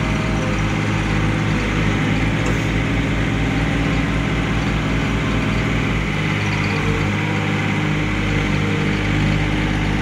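John Deere 2520 compact tractor's diesel engine running steadily while its rear backhoe digs, with a change in the engine note about six seconds in.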